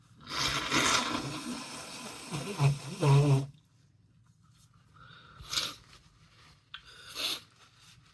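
A congested nose being blown into a tissue for about three seconds, ending in two loud honks, then two short sniffs a couple of seconds apart.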